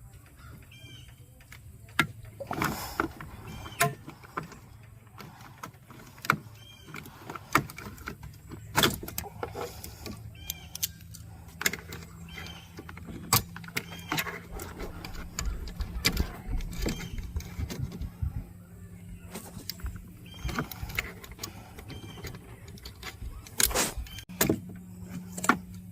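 Hands and tools working an old coolant hose and fitting loose under a pickup's hood: scattered clicks, knocks and rubbing, over a steady low hum.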